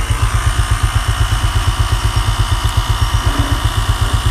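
Compact 12 V cigarette-lighter portable tyre inflator running, its small piston compressor chugging in a steady, rapid pulse with a strong low throb as it pumps air into a motorcycle inner tube.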